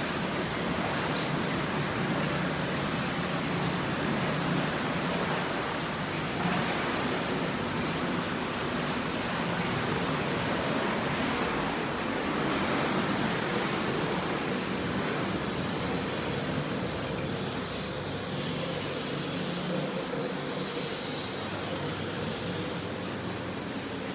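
Steady rushing and bubbling of water churned by a spa pool's hydromassage jets. It grows slightly softer about two-thirds of the way through.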